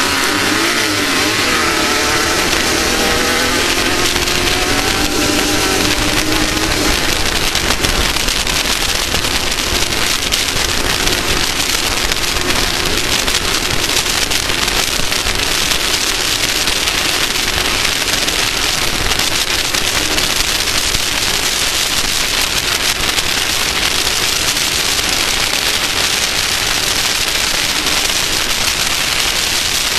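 Off-road race vehicle's engine running at speed under a loud, steady rush of noise. Its pitch rises and falls through the first several seconds, then sinks into the rush.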